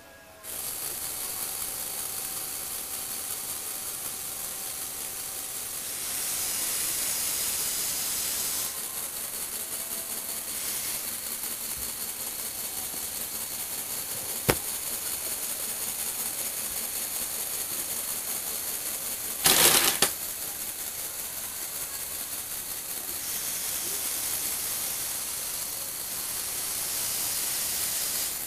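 Lego Technic model's electric motors and plastic gears running the incline mechanism that tilts the toy car, a steady fast clicking rattle. A single sharp click comes about halfway through and a brief louder burst about two-thirds of the way in.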